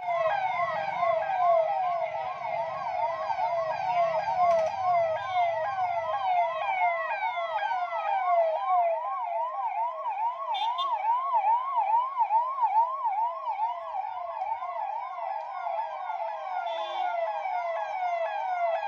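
Sirens on a convoy of police and administration vehicles, wailing in a fast yelp with the pitch sweeping up and down about three times a second, several sirens overlapping out of step. A low engine rumble underlies the first few seconds.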